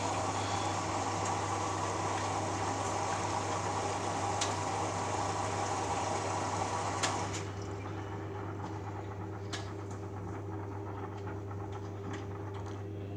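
Beko Eco Care WMA 1510 W washing machine on an Eco 60°C wash, with water rushing in over a steady low hum. The rush cuts off with a click about seven seconds in, leaving the quieter hum.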